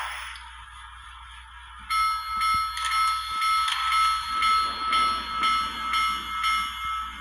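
Digital sound effects from a Kato model Big Boy steam locomotive, played through its small onboard speaker. A soft hiss is followed, about two seconds in, by the locomotive bell ringing steadily at about two strokes a second.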